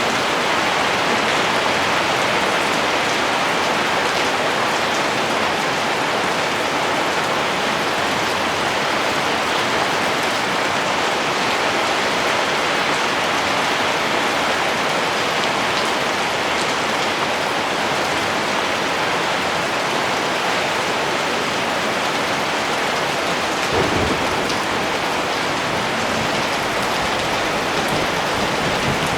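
Heavy rain falling steadily, a dense, even hiss. Near the end a brief thump is followed by a low rumble that carries on under the rain.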